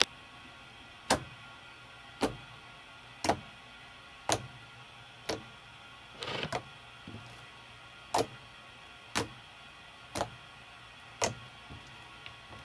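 Slime made with laundry detergent being squeezed and pressed for ASMR, giving a sharp wet pop about once a second, with a short squishy rustle about halfway through.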